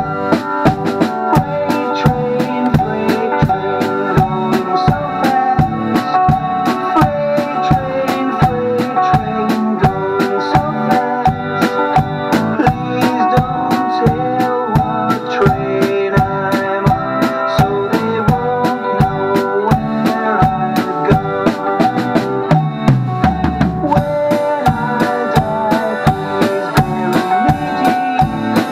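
Acoustic drum kit played with sticks in a steady, even beat over accompanying music with pitched instruments such as keyboard.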